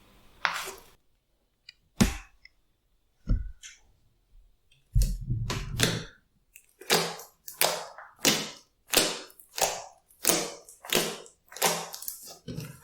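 Glossy slime being pressed and worked by hand, making sharp wet squelches and pops. There are a few single squelches, then a short stretch of low crackling, then a steady run of squelches about three every two seconds.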